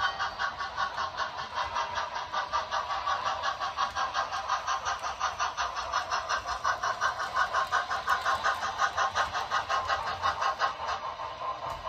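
Model steam locomotive's onboard sound system chuffing at a steady beat of about five chuffs a second as the engine runs, easing briefly near the end.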